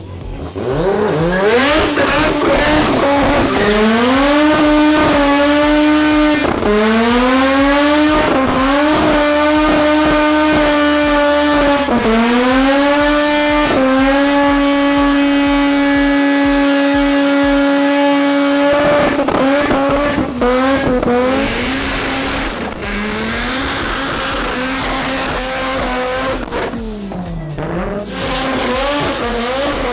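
Old Mazda RX-3's rotary engine held at high revs during burnouts, with tyre squeal. The revs climb and hold steady for a few seconds at a time, drop briefly and climb again several times. From about 19 seconds in they blip up and down in shorter, choppier bursts.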